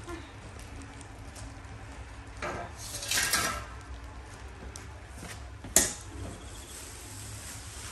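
Kitchen utensils and dishes being handled: a scraping, rustling stretch about three seconds in and a single sharp knock near six seconds, over a steady low hum.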